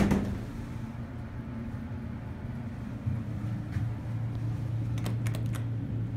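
Westinghouse hydraulic elevator: the car doors shut with a thud, then a steady low hum that grows a little louder about three seconds in. A few quick clicks come about five seconds in, around when the car's floor button is pressed.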